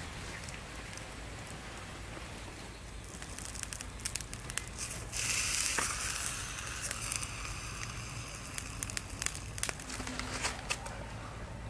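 Crinkling and rustling of a fresh banana leaf being handled over a small pan on a wood fire, with the fire crackling in irregular sharp clicks. A brief louder hiss comes about five seconds in.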